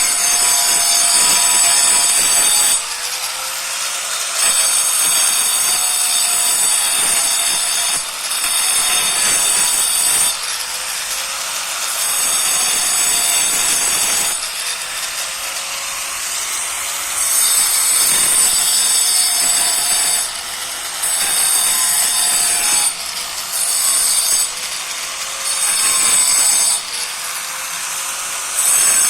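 Power cutting machine grinding V-grooves along cracks in a concrete terrace floor, a high whining cut that swells and eases every two to four seconds as the blade bites and lets up. This is the crack-opening stage before the cracks are sealed for waterproofing.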